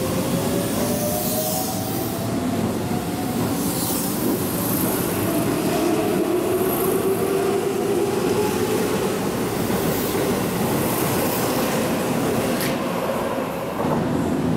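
Keihan electric commuter train pulling out of the platform and picking up speed: a rising whine from its motors over the rumble and rattle of the cars rolling past.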